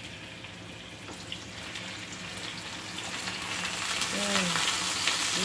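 Marinated chicken wings sizzling in hot oil in a frying pan as they are put in. The sizzle grows steadily louder as more pieces go in.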